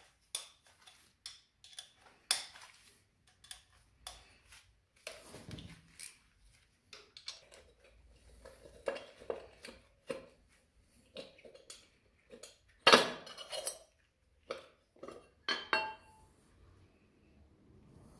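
Hex key clicking and clinking against the screws and metal sprocket cover of a 2007 Triumph Bonneville engine as the cover is unscrewed and lifted off, with scattered metal knocks and a louder clatter about thirteen seconds in.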